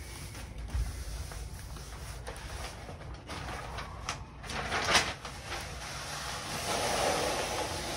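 Sticker sheet being handled, peeled and pressed onto a wall by hand: scattered rustling and scraping with a few small clicks, and a louder rustle about five seconds in.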